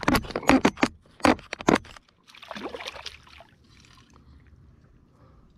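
Hooked fish thrashing at the water's surface beside a kayak, splashing hard several times in quick succession over the first two seconds. A softer burst of splashing follows about two and a half seconds in, then only faint lapping water.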